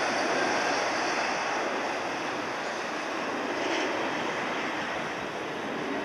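Airbus A330 airliner's twin jet engines running at low power as it taxis, heard as a steady rushing hiss, mixed with strong wind.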